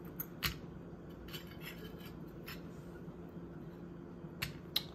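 Light clinks of the steel knife liners and small parts against a stainless steel parts dish as they are handled, scattered through, with two sharper clinks near the end.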